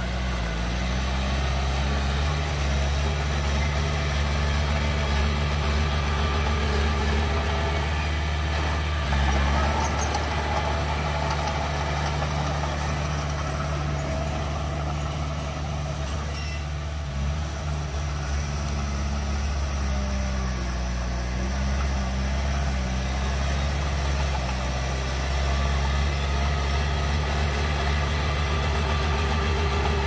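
Heavy diesel machinery engine running steadily, its low note stepping up and down slightly a few times as the machine works.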